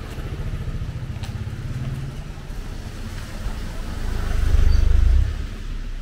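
A motor vehicle engine running close by, with a low pulsing sound that rises a little in pitch over the first two seconds, then a louder, deeper rumble from about four seconds in that drops off just after five seconds.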